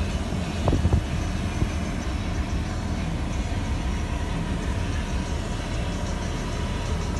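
Steady low rumble and hiss inside the cab of a running 2017 Ford F-250 pickup, the engine idling with the climate-control fan on. A few light knocks about a second in.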